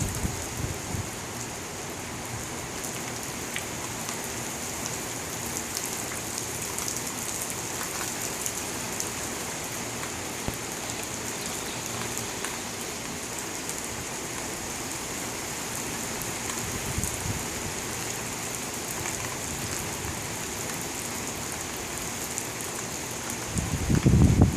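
Steady rain falling, with many fine drop ticks over an even hiss. A louder low rumble rises near the end.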